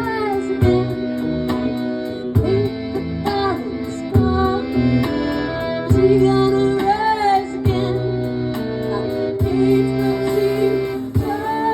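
Live acoustic folk music: plucked guitar keeping a steady beat, with a long, gliding melodic line held over it.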